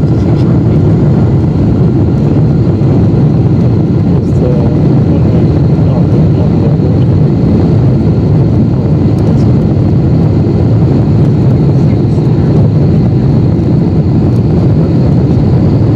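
Deep, steady cabin roar inside a Boeing 747-8 on approach with flaps extended: the GEnx engines and the rush of air over the wing, heard from a window seat.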